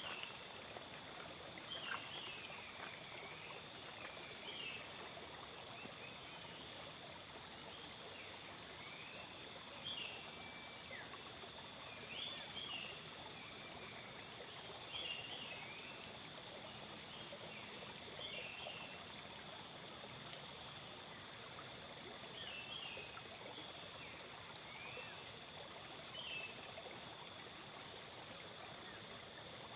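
Outdoor insect chorus: a steady high-pitched drone with cricket-like trills, short trains of rapid pulses repeating about every four seconds. Scattered short high chirps run through it.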